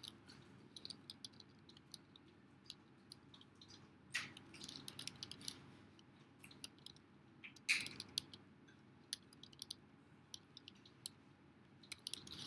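Typing on a computer keyboard: scattered faint key clicks, with two louder keystrokes about four and eight seconds in.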